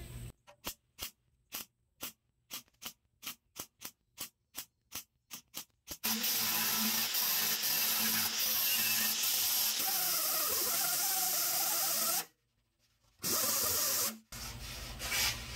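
MIG welder tacking a patch into a steel dash panel: a quick run of short bursts, about three a second, for the first six seconds. Then an angle grinder with a flap disc grinds the welds down, running steadily for about six seconds, stopping, and running again briefly.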